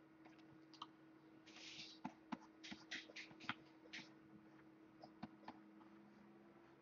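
Near silence with faint, scattered clicks and taps over a low steady hum.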